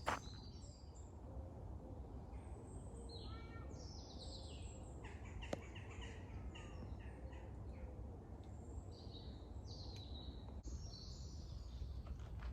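Birds chirping and calling in short, scattered phrases over a steady low background rumble, with a sharp click at the start and another about five and a half seconds in.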